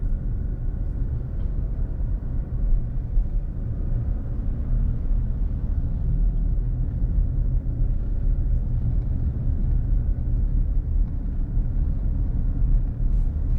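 Steady low rumble of a car driving at town speed, heard from inside the cabin: road and engine noise.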